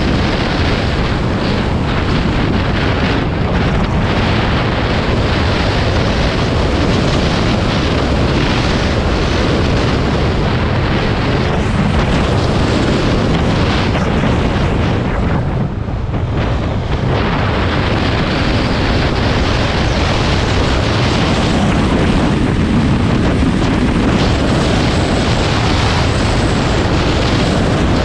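Honda dirt bike running under way on a dirt track, its engine mixed with heavy wind buffeting on the microphone. The sound dips briefly about halfway through, then carries on as before.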